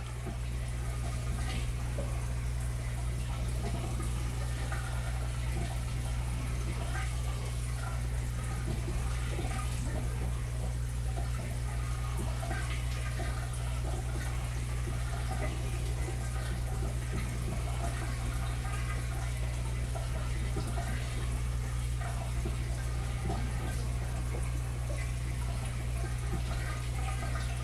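Large aquarium's water circulation running: a steady low hum from the pump with water splashing and gurgling over it.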